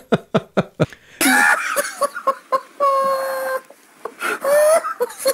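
A man laughing hysterically: a quick run of short laughs, then breathless, wheezing laughter with a high, drawn-out squealing cry about three seconds in.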